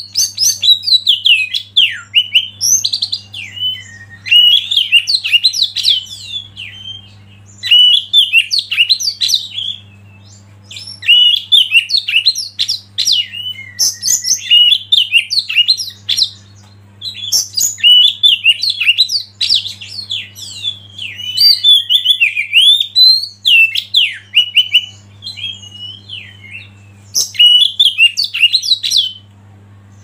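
Oriental magpie-robin (kacer) singing energetically: phrases a few seconds long of rapid, varied whistles, slurred notes and chattering trills, broken by short pauses. A faint steady low hum runs underneath.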